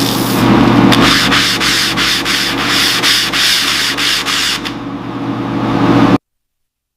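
Sanding: rapid, rhythmic rubbing strokes, about three a second, over a steady low hum, stopping abruptly about six seconds in.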